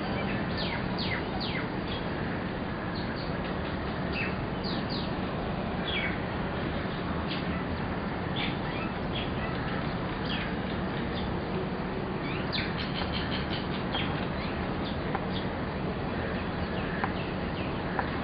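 Small birds chirping: many short, high chirps that slide downward, scattered throughout over a steady background hiss with a faint low hum.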